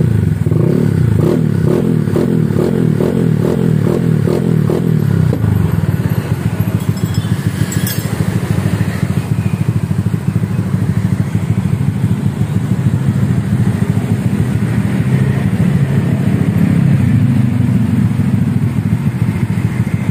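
Honda Vario scooter's single-cylinder four-stroke engine running through a racing exhaust: a rapid, even pulsing for the first five seconds or so, then steadier idling.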